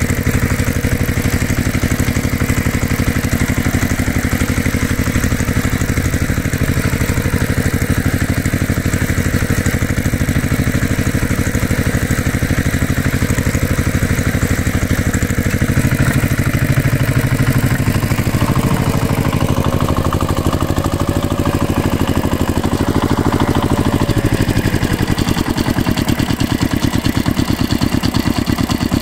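Tractor engine idling with an even, steady chug; the beat changes near the end.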